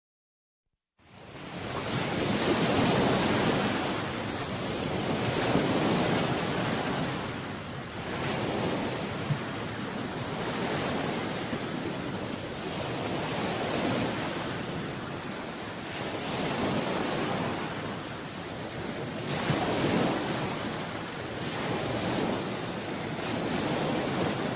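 Ocean surf: waves breaking and washing in, swelling and easing every few seconds. It fades in about a second in.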